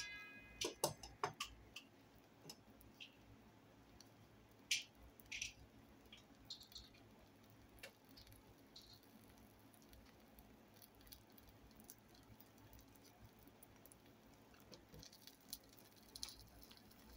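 Eggs frying in a nonstick pan: faint, sparse crackles and ticks of the fat, with a couple of louder pops about five seconds in.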